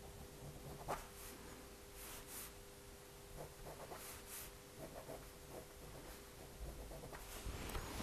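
Faint, intermittent scratching of a pen drawing strokes on a paper sketch pad, over a faint steady hum.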